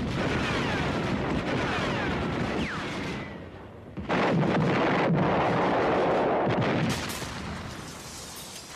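Battle sounds: rifle and machine-gun fire, with thin falling whines in the first three seconds. About four seconds in comes a sudden, louder blast that holds for a few seconds and then dies away.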